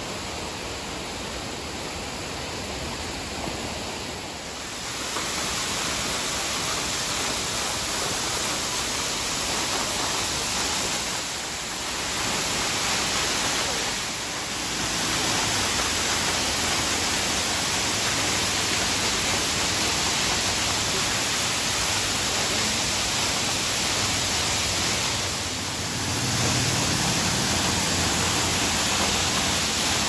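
Steady rushing of the Steinsdalsfossen waterfall's falling water and spray, growing louder about five seconds in, with a few brief dips.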